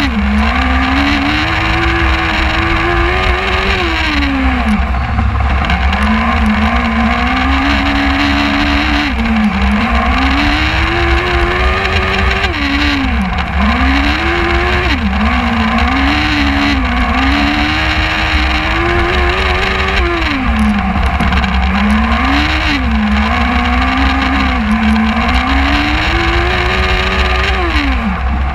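Superlite race car's engine heard from on board, revving up and dropping back over and over as the car accelerates out of corners and slows for the next, roughly every two to four seconds. Each climb in pitch is gradual and each fall is quick.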